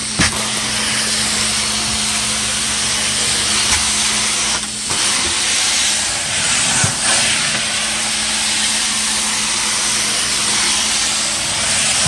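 Truckmount carpet-cleaning wand spraying hot water and sucking it back up off the carpet: a steady loud hiss of spray and vacuum airflow, with a steady low hum underneath.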